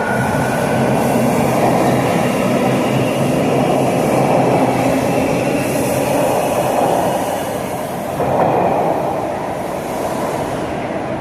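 Older Toronto (TTC) subway train moving along the platform: steady noise of steel wheels on the rails, with a faint high whine in the first couple of seconds.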